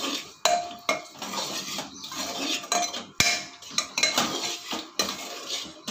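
Metal spoon scraping and clinking against the inside of a pressure cooker, stirring a thick masala in irregular strokes, with one sharp clink about three seconds in.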